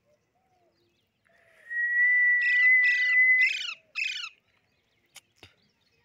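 Alexandrine parakeet giving five harsh screeches in quick succession, over a steady whistled note held for about two seconds. Two faint clicks near the end.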